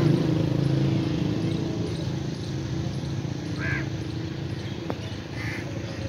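A motor vehicle's engine rumbling low and fading away over the first few seconds, with two short bird calls later on.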